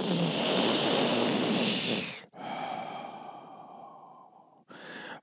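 A long drag on a box-mod e-cigarette close to the microphone: a loud hiss of drawn air for about two seconds that stops sharply. It is followed by a long exhale of vapour that fades away.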